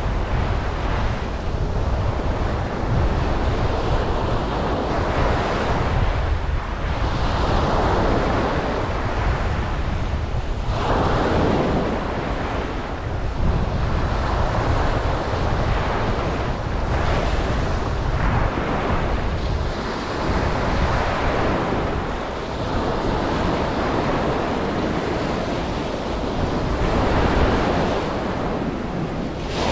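Ocean waves breaking and washing up on a beach, one surge after another every few seconds, over a steady low rumble of wind on the microphone.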